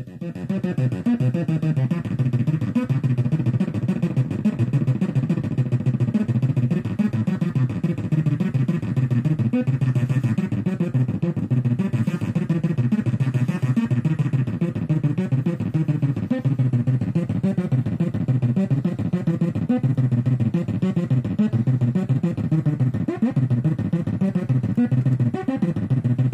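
Sequenced sine-wave tones from a modular synthesizer run through a breadboarded op-amp Big Muff-style fuzz, giving a dense, fast-pulsing distorted tone with most of its weight low in pitch. It jumps in loudness just after the start as the circuit's knob is turned, then stays steady.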